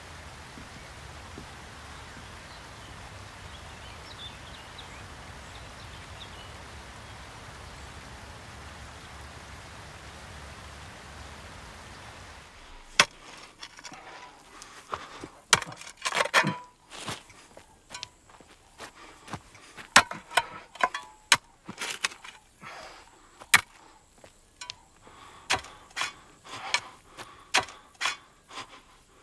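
A steady outdoor background hiss, then from about halfway on a run of sharp, irregular clacks and knocks: loose stones being moved and knocked against each other by hand.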